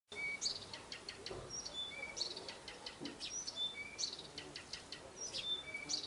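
Small songbird singing a fast, unbroken song of short clear whistles at several pitches mixed with quick sweeping notes. The uploader takes it for a nightingale.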